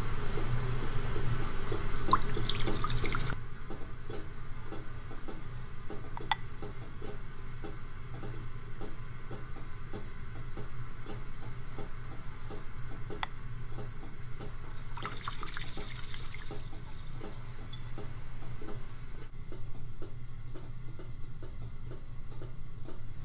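Water poured and splashing into a bowl for about the first three seconds, then quieter, with a low steady hum and a few faint light clicks.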